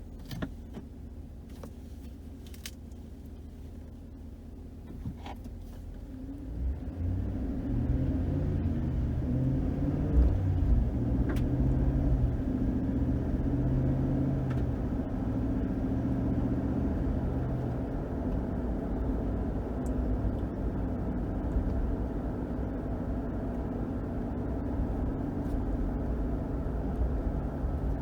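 Ram 1500 pickup with a 5.7-litre HEMI V8 driving: a low, quiet hum with a few light clicks for the first several seconds, then, about six to eight seconds in, the engine note rises as the truck accelerates. It then settles into a steady cruise with engine and road noise.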